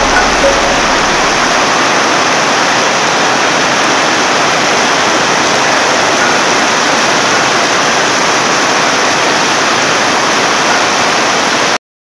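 Heavy rain pouring down in a steady, dense hiss. It cuts off suddenly just before the end.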